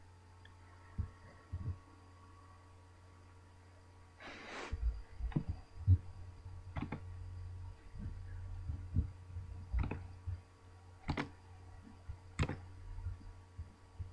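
Scattered computer mouse clicks and light desk knocks, irregularly spaced, with a brief rustle about four seconds in, over a low steady electrical hum.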